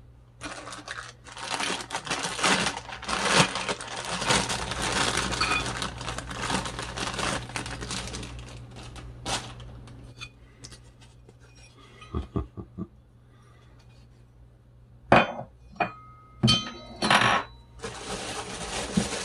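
Plastic packaging crinkling and rustling for several seconds as soldering-station parts are unwrapped and lifted out of the box. Scattered small clicks follow, then a few sharp metallic clinks with a brief ring near the end.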